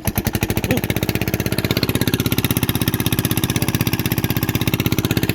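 Small engine running steadily at an even speed, with a rapid, regular pulse.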